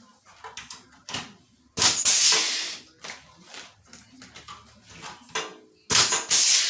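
Pneumatic pop-rivet gun setting two blind rivets: each pull is a loud hiss of air lasting about a second, the first about two seconds in and the second near the end. Light knocks and clicks come between them as the tool is handled.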